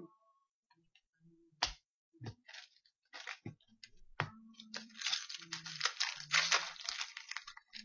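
Trading cards being handled on a counter, with a few separate clicks and taps, then about two and a half seconds of dense crinkling and tearing from a foil hockey-card pack wrapper being opened, starting about five seconds in.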